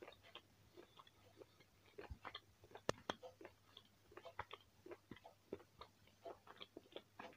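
Faint close-up chewing of a piece of dried beef biltong: a run of soft, irregular mouth clicks, with one sharper click about three seconds in.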